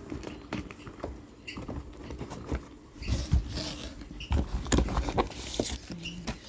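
Packaging being handled: plastic and paper rustling and crinkling, with irregular light taps and knocks, loudest in two stretches about three and five seconds in.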